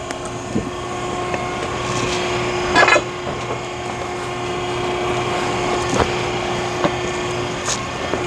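Hydraulic log splitter running steadily while splitting oak firewood, with the wood cracking and splintering loudly about three seconds in and a few sharp snaps later.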